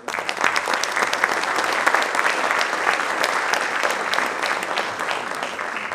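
Audience applauding, a dense spread of hand claps that starts suddenly and eases a little toward the end.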